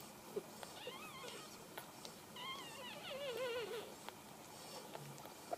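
Newborn Cavalier King Charles Spaniel puppies squeaking and whimpering while they nurse: short wavering high-pitched cries about a second in, then a longer run of them in the middle, with a few faint clicks.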